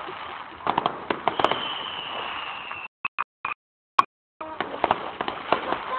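Distant display fireworks going off: a series of sharp cracks and bangs, with a long thin whistle falling slightly in pitch about a second and a half in. The audio drops out to dead silence several times around the middle.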